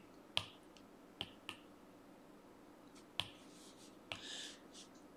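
Faint stylus taps and short scratchy strokes of a pen on a tablet screen: a handful of sharp taps, with two brief bursts of writing in the second half.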